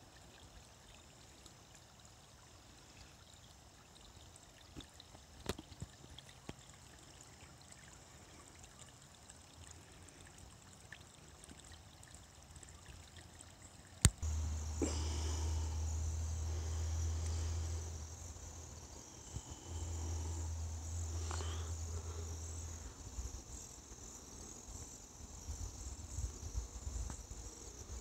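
A small, shallow creek trickling faintly over stones. About halfway through there is a sharp click, then crickets chirping over a steady low rumble that breaks off once and fades a few seconds before the end.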